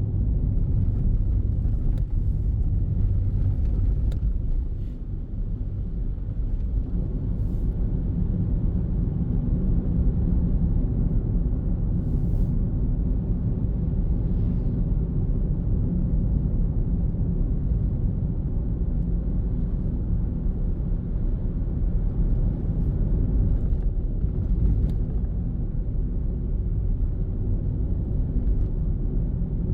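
Car being driven on city streets: a steady low rumble of engine and road noise that eases briefly about five seconds in.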